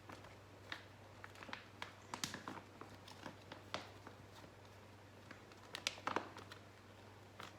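Heavy plastic shower liner crinkling as it is handled and folded over a crate seat, with scattered light clicks and taps and a few sharper clicks about six seconds in. A faint steady low hum runs underneath.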